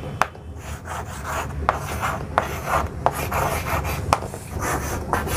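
Chalk writing on a blackboard: short scratchy strokes with sharp taps each time the chalk meets the board.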